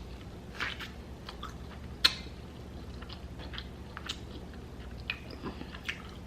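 Close-miked eating of seafood: irregular wet chewing and mouth clicks, with one sharp click about two seconds in.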